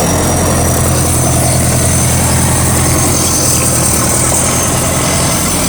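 Engine of a GAZ tracked all-terrain vehicle running steadily, near idle.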